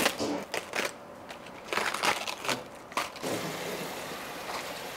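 Plastic cling film crinkling as it is pulled off a head of cabbage, and crisp snaps of cabbage leaves being torn off, in several short bursts. A steady hiss follows from about three seconds in.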